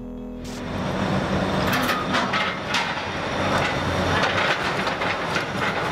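Demolition excavator working a gutted concrete building: the engine runs under a steady din while the attachment breaks into the structure, with repeated cracks, crunches and clattering of falling concrete and metal debris.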